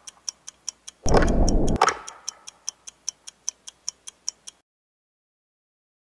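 Intro sound effect: an even ticking, about five ticks a second, with one heavy low hit about a second in. The ticking cuts off suddenly about a second and a half before the end.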